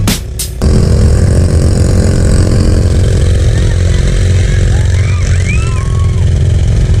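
ATV engine running steadily while riding a muddy dirt trail, a loud low drone with heavy rumble, heard from on board the quad. A music track cuts off abruptly about half a second in.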